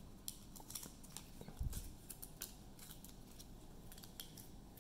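Faint clicks and taps of plastic-sleeved trading cards being handled and set down one by one on a marble tabletop, with a soft low thump about one and a half seconds in.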